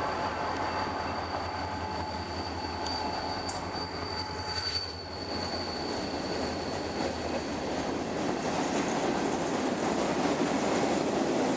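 Freight train passing: the diesel locomotive's engine drone with a thin, high, steady wheel squeal that stops about five seconds in. After that, tank cars roll over the rails, and the rumble and clatter of the wheels grow louder near the end.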